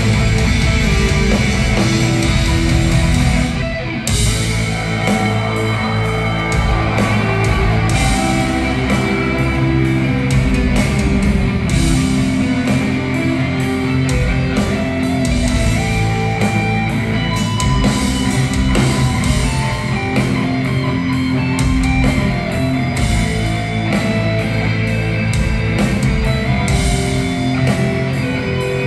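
Live metal band playing: distorted electric guitars ringing out sustained notes over bass and drums, with a brief break about four seconds in before the full band comes back in.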